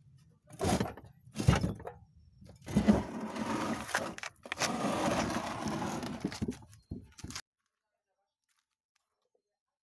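A few sharp knocks, then two longer stretches of rough scraping, rushing noise from the wooden fuigo box bellows being handled and worked by its handle. The sound cuts off suddenly about seven seconds in.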